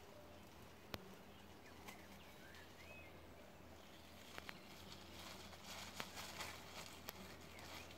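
Faint outdoor ambience: a low steady hum, a few faint short chirps a couple of seconds in, and scattered sharp clicks with light crackling later on.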